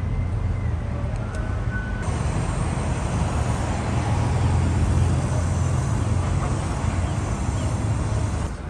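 Steady city traffic noise at a tram stop: a continuous low rumble of passing vehicles that swells a little in the middle.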